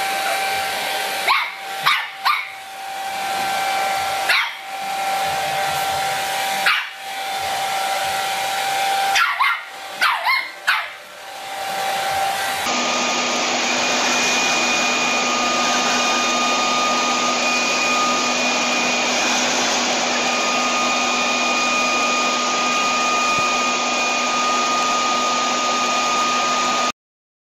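A hair dryer running steadily while a puppy barks and yaps at it about eight times. Then a leaf blower runs with a steady whine until it cuts off suddenly near the end.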